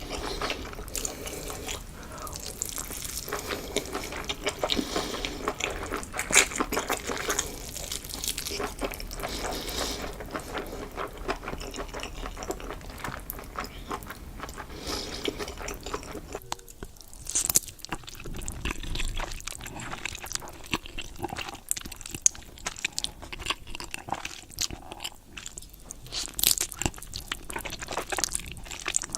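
Close-miked eating sounds: a person biting into and chewing crunchy food, with irregular crackles and crunches, the texture changing about halfway through.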